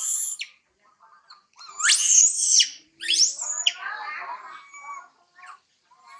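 Young macaque screaming: two loud, shrill calls rising in pitch about two and three seconds in, trailing off into quieter whimpering cries.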